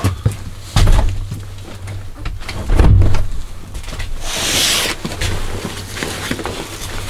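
Heavy thumps of boots on a wooden plank floor and a door being shut, the loudest thump near three seconds in, followed by the rustle of a backpack and jacket being pulled off.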